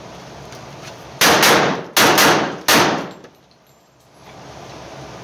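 HK45C .45 pistol firing a quick string of shots, starting about a second in and over within about two seconds, each shot ringing briefly in an indoor range booth.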